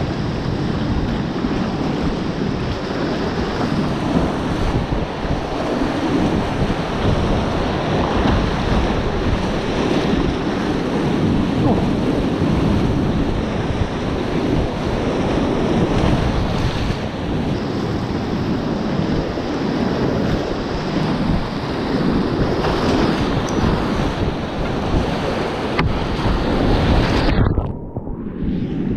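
Whitewater rapids rushing and splashing around a kayak from close up, loud and steady; about a second before the end the sound turns briefly muffled.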